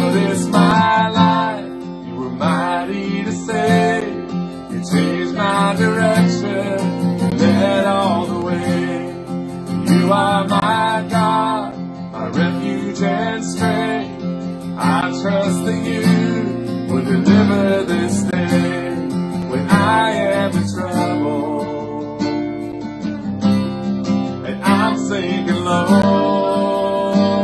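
Acoustic guitar strummed as accompaniment while a girl sings a slow worship song in phrases.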